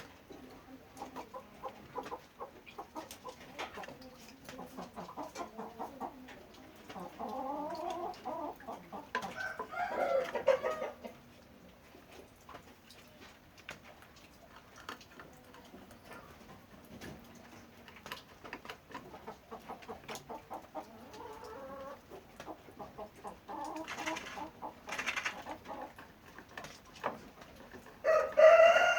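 Chickens clucking and calling among scattered clicks and knocks, with a louder, drawn-out call near the end.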